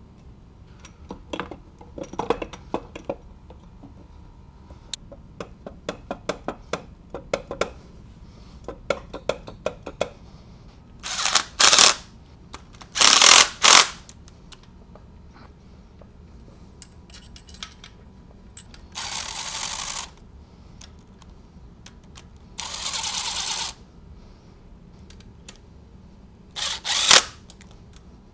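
Metal tools and bolts clinking as the supercharger is fitted to the engine, then about seven short runs of a handheld power tool driving bolts, each half a second to a second long, the loudest around the middle and near the end.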